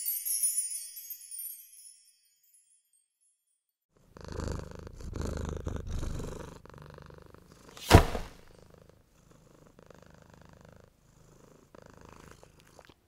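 A domestic cat purring close up, in a steady rhythm of breaths in and out, starting after a couple of seconds of silence. A single sharp knock about eight seconds in is the loudest sound.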